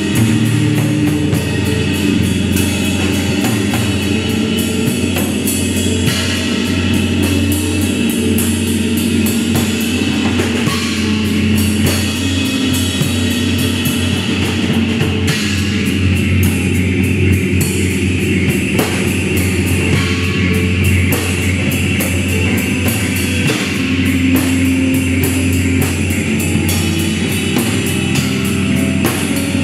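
Live experimental noise-rock from a trio of six-string bass, electric guitar and drum kit. A steady stream of rapid drum and cymbal strokes plays over a held low bass drone and sustained guitar tones.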